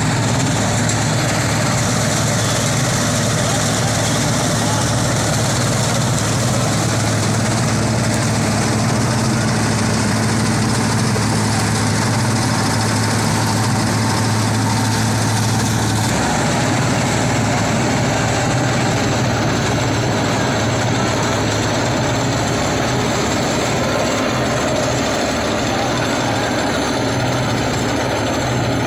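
Massey Ferguson diesel tractor running steadily under load, driving a straw reaper-chopper: a loud continuous engine drone mixed with the whirring of the chopper and the rush of chopped straw being blown into the trailer.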